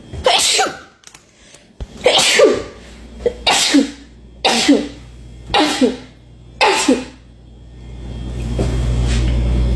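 A person sneezing six times in quick succession, about a second apart, each a sharp burst with a falling voiced cry: a fit of constant sneezing from an allergy attack. Near the end a steady low rushing noise takes over.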